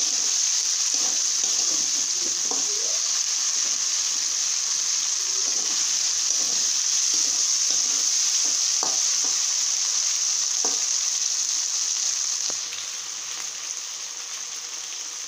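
Sliced onions and ginger-garlic paste sizzling steadily in hot oil in a metal kadai, stirred with a spatula that scrapes against the pan now and then. The sizzle turns somewhat quieter near the end.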